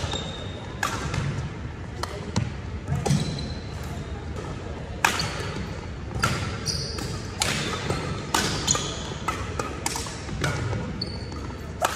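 Badminton doubles rally: rackets striking the shuttlecock about once a second, with sports shoes squeaking briefly on the wooden court floor between shots, all ringing in a large hall.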